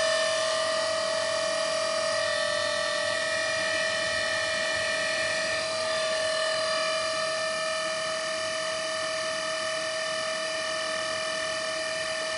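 A Bosch machine giving off a steady whine made of several pitches at once, the upper tones shifting slightly about two and six seconds in.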